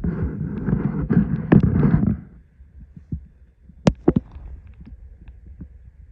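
A vehicle rumbling along a rough back road. It is louder and rattly for the first two seconds, then settles to a low steady rumble with scattered knocks and two sharp clicks about four seconds in.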